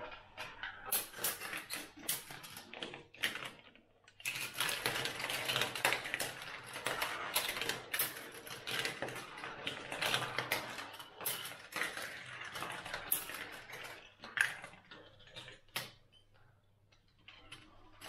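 Steel marbles rolling and clattering through a GraviTrax Pro plastic marble run: a dense stream of small irregular clicks and rattles, with a short lull about four seconds in and fewer clicks near the end.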